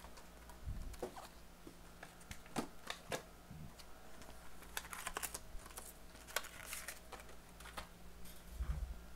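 Faint scattered clicks, taps and rustling of small things being picked up and handled, with a soft low thump shortly after the start and another near the end.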